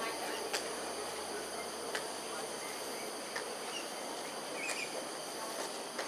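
A steady, high-pitched chorus of insects buzzing at several fixed pitches. A few sharp clicks and one brief small chirp stand out, the chirp near the end.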